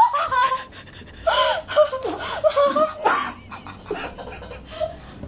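Laughter and gasping, excited voice sounds in short bursts, without clear words.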